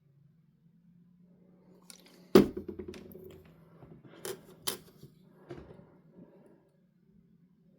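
Sharp clicks and taps from handling small parts and tools. The loudest comes about two and a half seconds in, followed by three smaller ones over the next three seconds, over a faint steady low hum.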